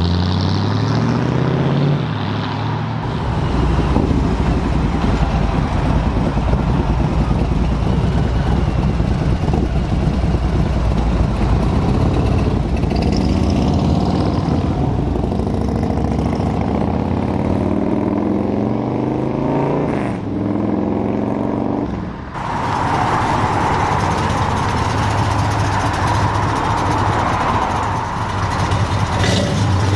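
Loud American car engines, V8s, running and revving; the engine note falls at the start and rises and falls again in the middle. About 22 seconds in the sound cuts abruptly to another engine running.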